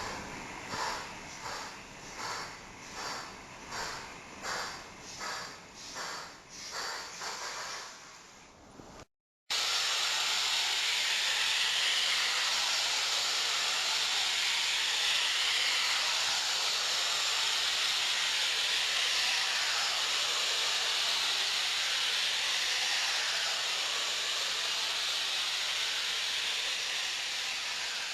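Electronic steam sound module in a model railway wagon: simulated steam-locomotive chuffing at about one and a half chuffs a second, fading out over about eight seconds. After a short silence, a loud, continuous steam hiss starts and holds steady to the end.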